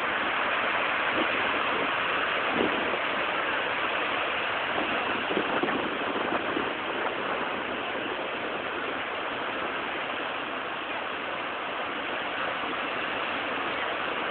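Steady rushing roar of rough surf whipped up by a typhoon, breaking continuously with no let-up.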